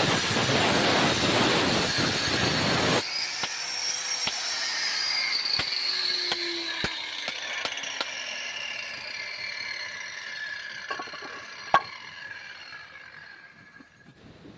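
Power saw cutting granite, a loud even grinding that stops abruptly about three seconds in. Then the blade winds down with a whine that slowly falls in pitch and fades, with a few light ticks and one sharp knock near the end.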